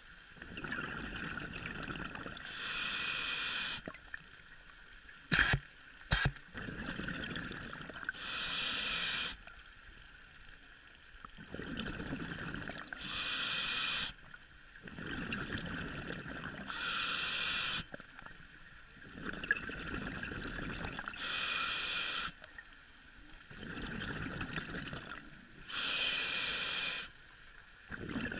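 Scuba diver breathing underwater through a regulator: a slow, regular cycle of a hissing breath and a low bubbling rumble, repeating about every four to five seconds. Two sharp knocks sound about five and six seconds in.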